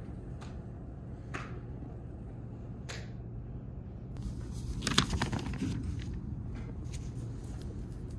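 Handwritten spiral-notebook pages being handled and turned: a few small ticks, then a paper rustle about four to six seconds in.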